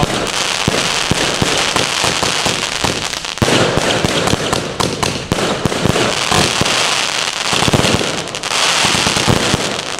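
100-shot compound firework cake firing a rapid, continuous run of shots, each launch followed by its burst.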